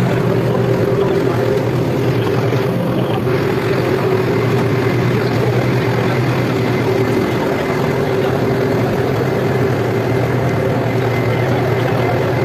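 Large diesel engine idling: a steady low drone with a constant hum.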